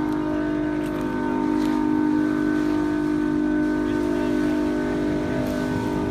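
A motor on the firefighting boat running steadily at one pitch, a constant drone with hiss underneath, as the boat throws a jet of water onto the burning boat.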